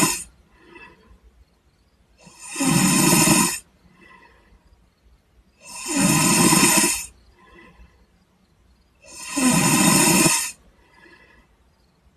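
A sleeping man snoring: three long snores, each lasting about a second and coming about every three seconds, with a fainter, shorter sound between each pair. The end of an earlier snore is heard right at the start.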